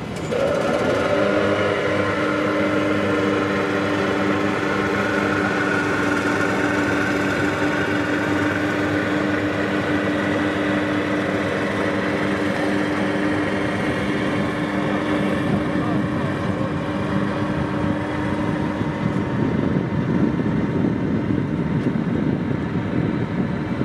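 A steady motor-like hum made of several even tones over a noisy outdoor background, fading out about nineteen seconds in.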